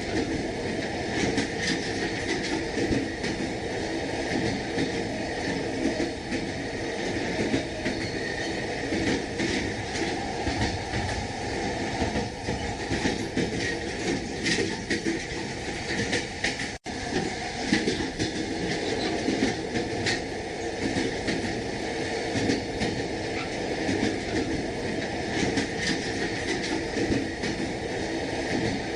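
Train carriage running along the track, heard from inside: a steady rumble with the wheels clacking over rail joints. The sound drops out for an instant about two-thirds of the way through.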